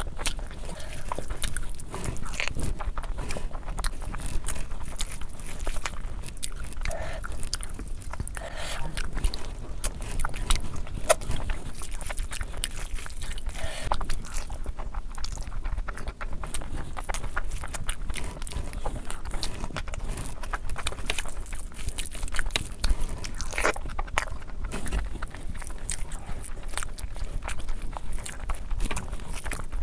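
A person eating a meal of curry and rice, chewing and biting steadily, with many small clicks.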